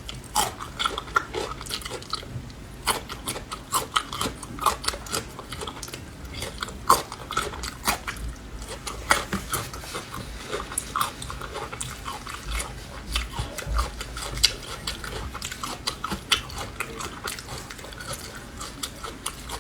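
Chewing of crunchy Laba garlic cloves pickled in vinegar, with many sharp crunches at an uneven pace.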